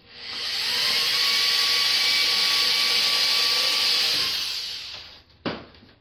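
Power drill boring a pilot hole into the plywood of a small boat's transom. It spins up, runs steadily for about four seconds with a faint motor whine, then winds down, and a single knock follows near the end.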